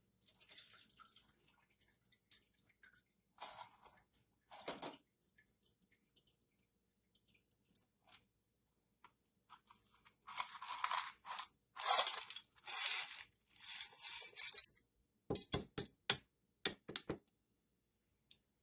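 Small carburetor parts being handled and cleaned at a bench: scattered scratchy, hissing scrapes, heaviest past the middle, then a quick run of sharp clicks and knocks near the end.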